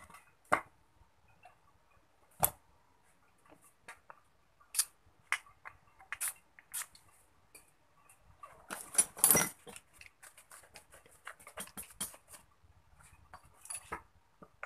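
Irregular clicks and light metallic clinks of a water pump's impeller and parts being handled and fitted by hand onto the pump housing. The clicks come in a dense, louder flurry about nine seconds in.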